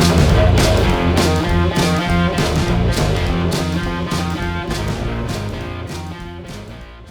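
Rock-style music with guitar and a steady drum beat, fading out over the last few seconds.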